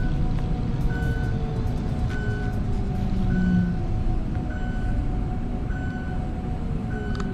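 Vehicle reversing alarm: a single high beep repeating evenly about every second, over a steady low rumble of engine and street noise.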